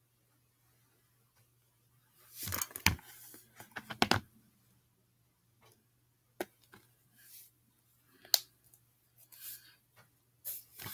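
Scattered clicks, taps and short scrapes from stirring red colouring into slime glue in a plastic container. The handling is busiest about two to four seconds in, with single sharp clicks later on.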